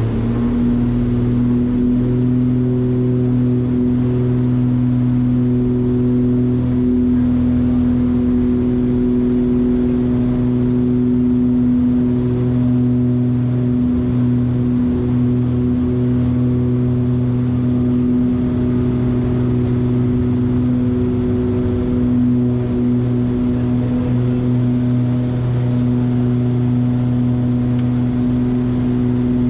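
Steady drone of the Piper Aerostar 700's twin piston engines and propellers in cruise, heard from inside the cabin as a constant hum of several held tones.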